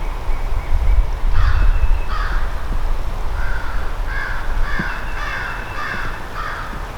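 Crow cawing: two harsh caws about a second in, then a run of about six caws, roughly two a second, through the second half.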